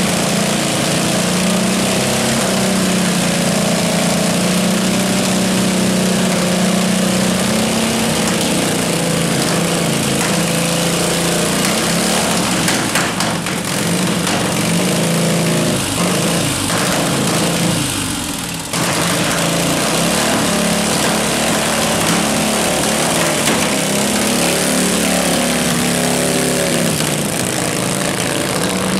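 Vintage racing engines running and being revved: a continuous loud engine drone whose pitch wavers up and down, with a brief dip in level about 18 seconds in.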